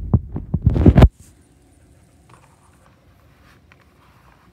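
Animatronic clown doll's speaker playing the end of a sound clip: a quick run of loud, low thumps that cuts off suddenly about a second in. A faint high whine follows, then quiet.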